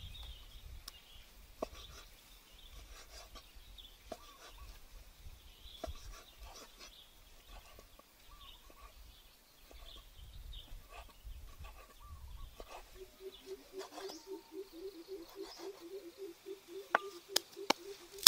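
Outdoor ambience with scattered short bird chirps. For the last third a low animal call pulses rapidly and evenly, about four times a second, and three sharp knocks sound near the end.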